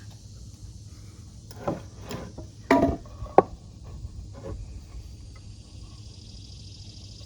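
Wooden 2x4 framing lumber knocking and clattering as it is handled. A couple of light knocks, then a louder clatter about three seconds in, followed by a sharp knock.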